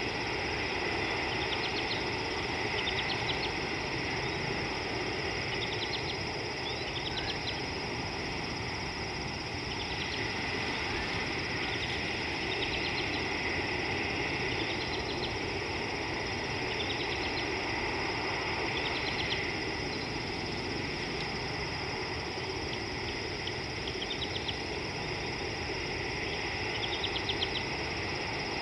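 Steady outdoor ambience with a constant high hum, over which a short, high, rapid clicking trill repeats every one to two seconds.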